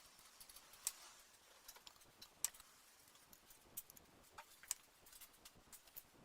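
Faint, irregular light clicks and ticks, as of small parts or tools being handled on a workbench, over quiet room hiss.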